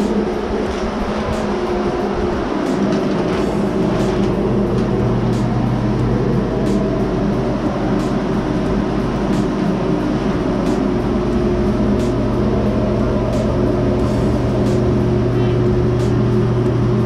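Electric blower running steadily, a constant drone with a low hum that grows a little stronger about eleven seconds in.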